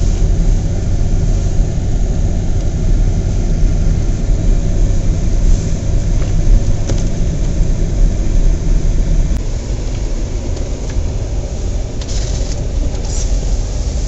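A car's cabin noise while it is driven along a snow-covered street: a steady engine and tyre rumble, which eases off a little about ten seconds in as the car slows.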